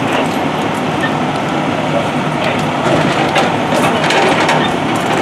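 Fire engines idling close by, a loud steady diesel rumble, with several sharp metal clanks and knocks from about halfway on as tools and equipment are handled at the engine's rear compartments.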